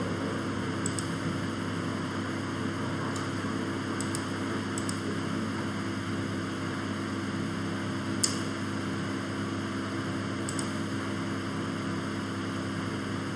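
Steady electrical hum and hiss from the recording setup, with about five faint, sharp mouse clicks, the clearest about eight seconds in.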